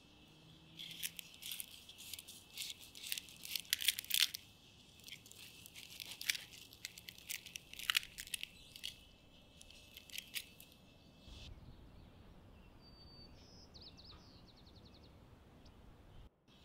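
A knife and fork cut through the charred outer leaves of a whole roasted stuffed cabbage, crackling and crunching in quick succession for about ten seconds, then stopping. Later a short high chirp and a quick trill of ticks sound.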